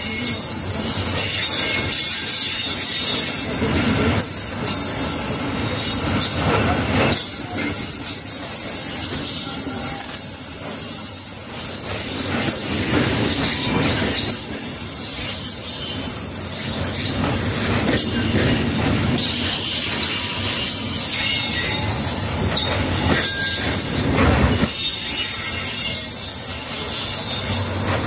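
Loaded timber wagons of a freight train rolling past close by, wheels squealing in thin high tones with a knock now and then from the running gear.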